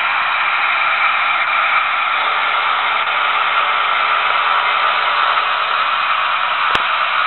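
Trix HO-scale model DB V 100 diesel locomotive running slowly: a steady hissing whir from its DCC sound decoder's small speaker and drive, with one sharp click near the end.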